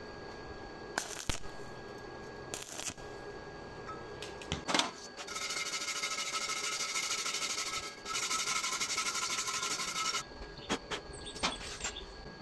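Electric arc welding on thin hollow iron tubing: a steady crackling hiss in two runs starting about five seconds in, with a short break between them. Before the welding there are a few sharp clicks and knocks of metal being handled.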